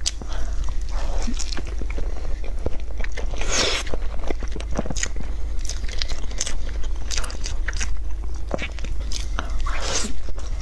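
Close-miked eating sounds: a woman biting into and chewing a soft cake roll with a purple rice filling, with many small mouth clicks and smacks and another bite near the end.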